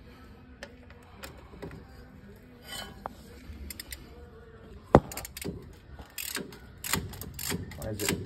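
Ratchet wrench clicking in runs in the second half as it works on a starter mounting bolt, with a sharp metal knock about five seconds in. A person is breathing hard throughout.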